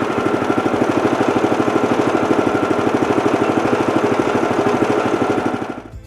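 Kohler gas engine on a portable bandsaw sawmill idling steadily with an even, rapid pulse, freshly started after sitting a long while; it fades out just before the end.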